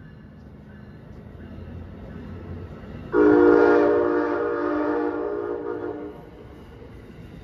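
Locomotive air horn sounding one long chord blast of about three seconds, starting about three seconds in and cutting off cleanly, over the rising rumble of an approaching train.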